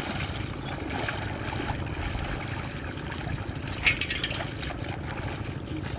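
Shallow muddy water splashing and sloshing as hands grope through it for fish, with a sharper burst of splashing and crackling about four seconds in.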